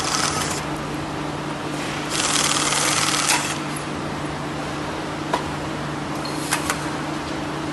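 Picket-fence roll-forming machine running with a steady motor hum. About two seconds in, a louder hissing, rasping stretch lasts about a second and a half, and a few sharp metallic clicks follow later.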